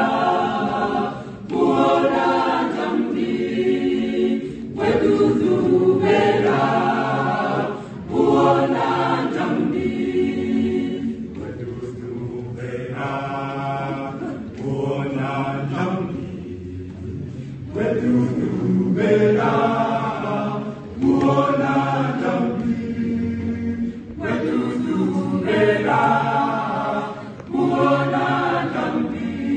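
Mixed-voice choir of men and women singing unaccompanied, in phrases of a few seconds each separated by short breaks.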